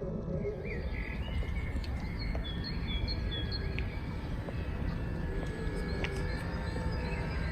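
Small birds chirping and twittering in short, high calls over a steady low rumble.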